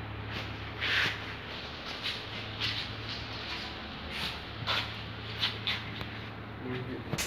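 Footsteps scuffing on a dusty, gritty concrete floor, a short gritty scrape at about one or two steps a second, over a steady low hum.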